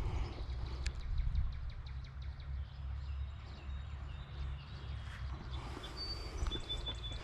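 Woodland birds calling with thin, high whistled notes, over a steady low rumble on the microphone. A sharp click about a second in.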